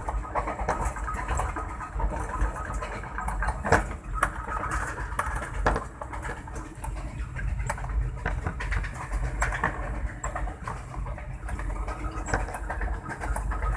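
Running noise inside the cab of a ZCU-20 diesel-electric locomotive: a steady low engine rumble with irregular clicks and rattles throughout.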